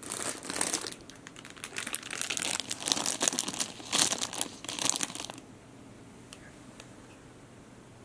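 Plastic wrapper of a packaged bread crinkling as it is handled, a run of crackling rustles that stops about five seconds in when the package is set down. A couple of faint ticks follow.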